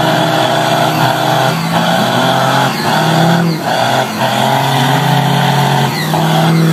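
Pickup truck's engine held at high revs in a burnout, spinning its rear tyres, with the revs dipping briefly about once a second.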